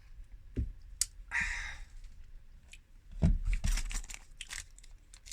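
Handling noise: a few dull knocks and a sharp click, then crackly rustling and crinkling that grows busier near the end.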